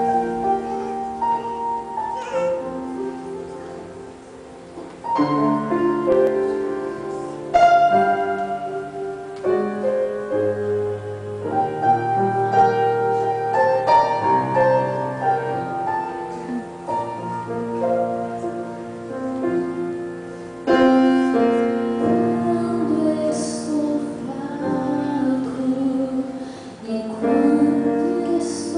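Live band playing a slow song: piano chords with accompanying instruments and a bass line that enters about ten seconds in, and a woman's voice singing through a microphone.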